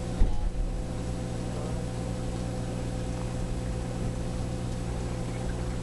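Steady low hum of aquarium equipment, with a dull bump near the start.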